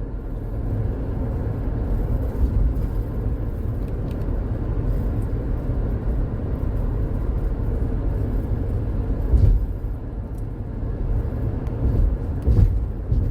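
Chevrolet Tahoe driving on the road, heard from inside the cabin: a steady low rumble of engine and tyres, with two brief thumps near the end.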